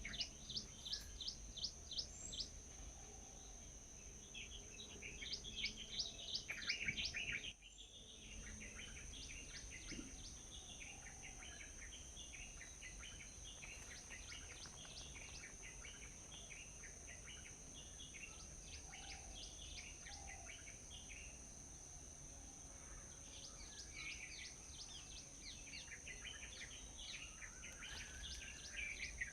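Small birds chirping, with rapid runs of short falling chirps coming in bursts and quieter calls in between, over a constant high-pitched tone.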